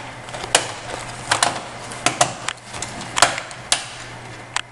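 Sharp plastic clicks and taps, about eight spread irregularly over four seconds, as the bottom access panel of an HP 2000 laptop is pressed back on and its clips snap into place.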